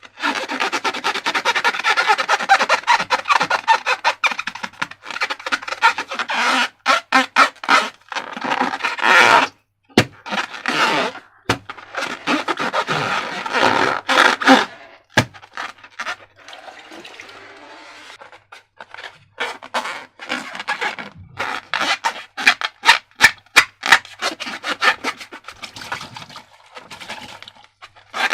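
Slime being squished and stretched by hand, a long run of sticky crackles and clicks with a few short pauses and a quieter stretch a little past halfway.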